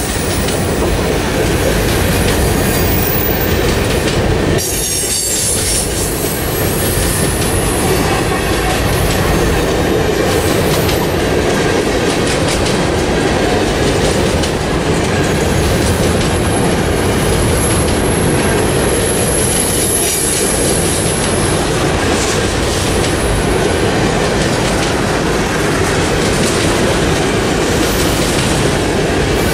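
Covered hopper cars of a freight train rolling past close by: steady wheel-on-rail rumble with clicks of wheels over rail joints. A thin high wheel squeal sounds for several seconds about halfway through.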